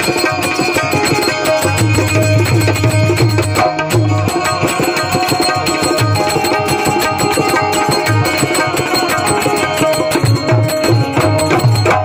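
Live Indian music: tabla played with steady, repeated deep bass strokes, with another hand drum and a bed of held notes behind it.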